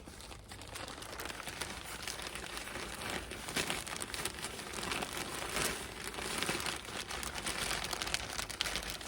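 Plastic bag of potting mix crinkling and rustling as the mix is poured and handled, with a continuous run of small crackles.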